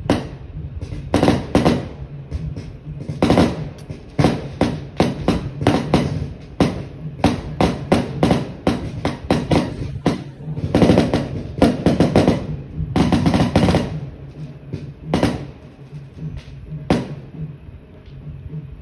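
Loud drumming: many irregular hard hits, some in quick rolls, that thin out to a few scattered hits near the end.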